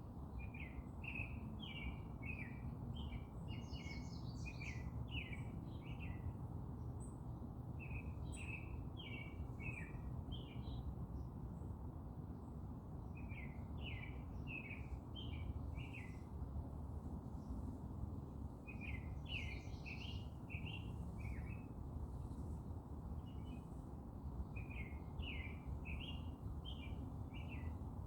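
Songbird singing in repeated phrases of quick, short chirps, one phrase every few seconds with pauses between, over a steady low background rumble.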